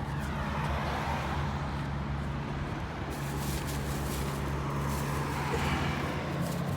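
A motor vehicle's engine running with a steady low hum, with faint road noise.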